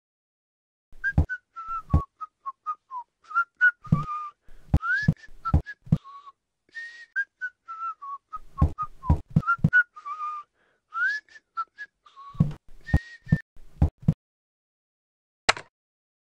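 A person whistling a tune in short notes, some sliding up or down, mixed with scattered low thumps. A single sharp click comes near the end.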